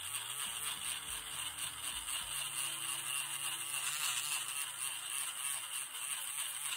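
Small handheld rotary tool spinning a polishing wheel against the black barrel of a fountain pen: a steady whir with a hissing rub that cuts off suddenly.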